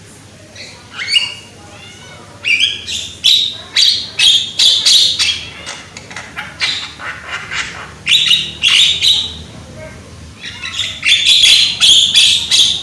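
Javan myna calling loudly: a rapid series of harsh squawks and chattering notes with a few whistled glides, in bouts broken by short pauses.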